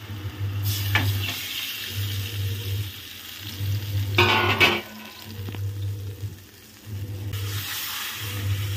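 Hot oil and spiced curd masala in a steel kadhai sizzling and spitting as boiled dumplings and their cooking water are poured in and stirred with a spatula. The loudest rush of sizzle comes about four seconds in, and the sizzling rises again near the end.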